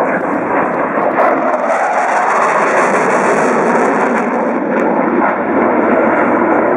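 Panavia Tornado GR4 in flight overhead. Its two RB199 turbofan engines give a loud, steady rushing jet noise.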